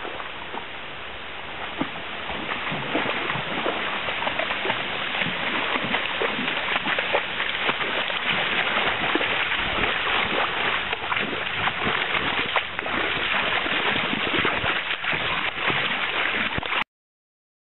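A dog wading and splashing in a shallow stream over the steady rush of the water, with many small splashes. It grows louder from about two seconds in and cuts off suddenly near the end.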